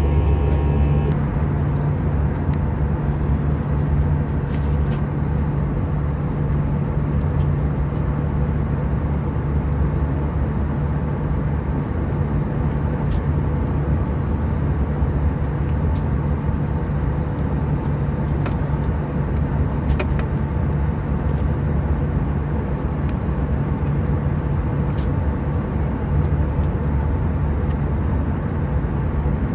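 Airbus A320 cabin noise in flight: a steady low drone of the engines and rushing air, with a few faint clicks.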